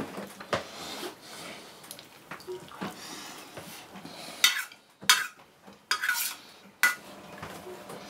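Metal spoon scraping and clinking against a metal bowl as food is scooped up: about four short scrapes in the second half.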